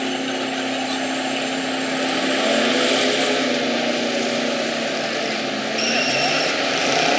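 Chevy truck's engine running hard at high revs off-road, a steady drone that swells slightly about two and a half seconds in and again near the end.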